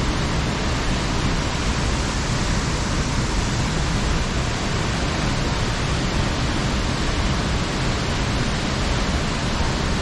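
Athirappilly Falls pouring down the rock face into its pool: a loud, steady rush of falling water that does not change.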